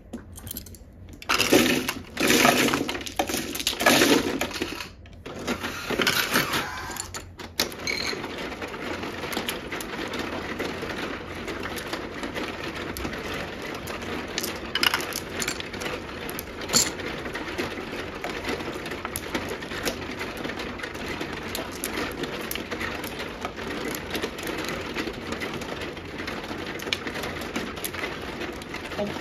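Mahjong tiles clattering loudly for several seconds as they are pushed across the felt into an automatic mahjong table's centre opening, then a steady rattling whirr from the table's shuffling mechanism mixing the tiles inside, with occasional sharp clicks of tiles set down on the table top.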